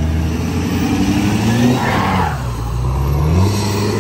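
Lifted Ford F-450 pickup's engine revving as it drives: the pitch climbs, drops about two seconds in, and climbs again near the end.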